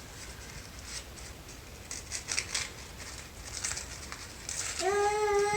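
Plant packaging being handled and cut: a few short crinkles and snips at scattered moments. Near the end, a held pitched sound comes in, rising slightly, and carries on past the end.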